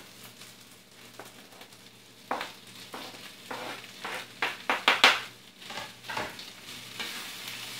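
Leftover roast chicken scraped off a cutting board into a hot skillet of charred peppers and onions, the pan sizzling while a wooden spoon stirs and scrapes it in. A run of sharp scrapes and knocks starts about two seconds in and is loudest around the five-second mark.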